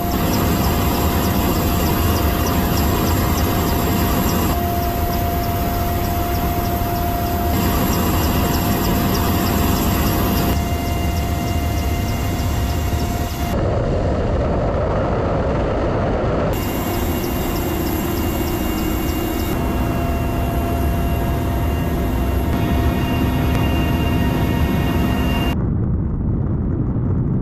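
Mi-8AMTSh helicopter's twin turboshaft engines and main rotor running in flight: a loud, steady din with a deep rumble and a turbine whine. The sound shifts abruptly every three seconds or so where the footage is cut between shots.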